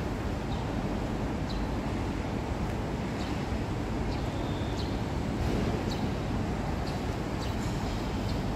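Steady outdoor background rumble, with short high chirps scattered through it about once a second.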